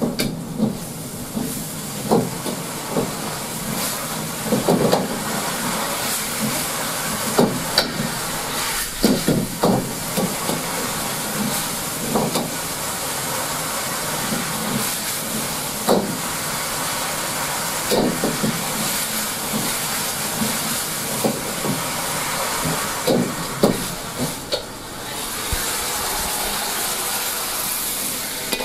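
Shark-fin braise boiling hard in a wok on a commercial wok range: a steady hiss of steam, with the metal ladle knocking and scraping against the wok every second or two.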